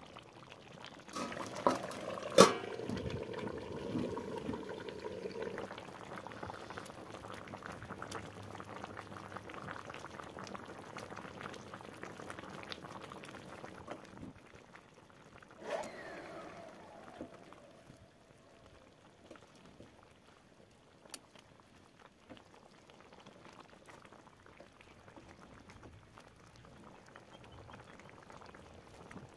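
Chicken curry gravy bubbling as it simmers in a metal pan, with a ladle knocking twice against the pan about two seconds in and a clank that rings briefly about halfway through. The bubbling grows quieter in the second half.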